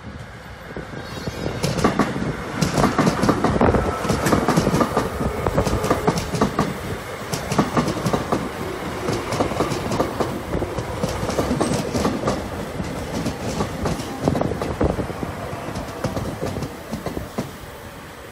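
Korail resistor-controlled (신저항) electric multiple unit passing close by, its wheels clattering rhythmically over the rail joints with a heavy rumble. It grows loud about two seconds in as the cars go by, with a faint falling whine, and eases off near the end.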